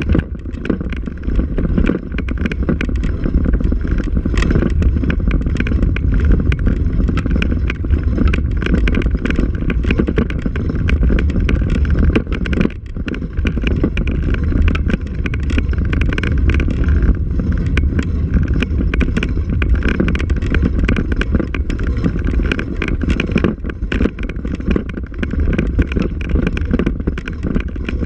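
Ride noise from a camera carried along a rough dirt forest track: a steady low rumble of wind buffeting the microphone, with constant rattling and knocking as the mount jolts over the bumpy ground.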